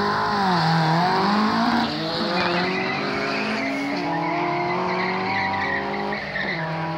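Drag-racing cars launching off the line: an engine note leaps up in pitch, then drops and climbs again several times through gear changes as the cars pull away down the strip, loudest in the first two seconds.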